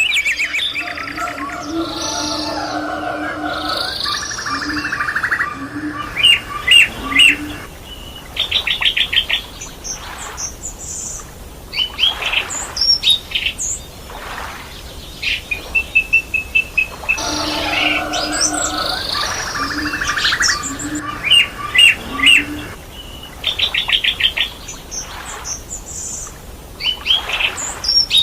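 Several birds chirping and calling together, with quick trills and whistles. A lower, steadier calling runs through the first six seconds and returns about 17 seconds in.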